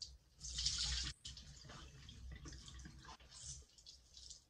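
Wet foam sponge squeezed by hand over a sink: a burst of water squirting out about half a second in, then crackly squelching with water dripping and splashing into the basin.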